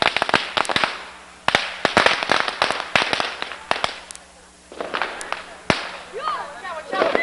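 Firecrackers going off in quick runs of sharp bangs, easing to a short lull just past halfway, then a few more scattered bangs. Excited voices call out near the end.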